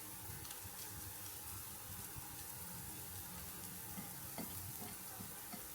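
Paneer and sweet potato tikkis shallow-frying in oil in a pan: a steady, faint sizzle with a few small ticks from the oil.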